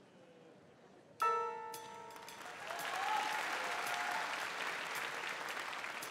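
A bell-like chime rings out about a second in and dies away, then a theatre audience's applause swells and keeps going.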